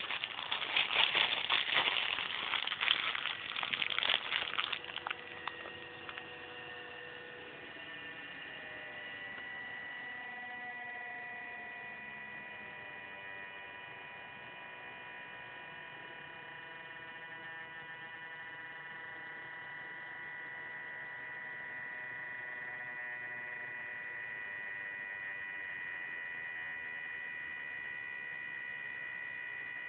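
Plastic sheet crinkling for the first few seconds, then a small Arduino-controlled DC fan running with a steady electrical hum and whine. Its pitch slides down as the controller cuts its speed with the falling temperature.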